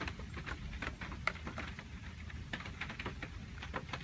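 Light rain: scattered drops tapping and dripping at irregular intervals, several per second, over a steady low rumble.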